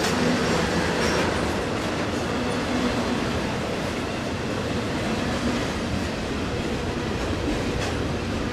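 Norfolk Southern double-stack container train rolling past, its steel wheels giving a steady rumble and clatter on the rails.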